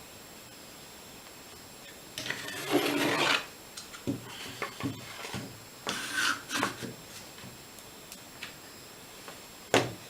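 Clamps being fitted onto a glued paddle. A rubbing scrape about two seconds in, then scattered clicks and knocks, and a sharp click near the end.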